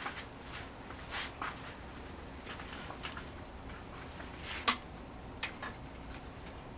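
Faint room tone with a scatter of soft clicks and rustles: handling noise from hands holding a thin metal sign plate against a wall. The sharpest click comes a little past the middle.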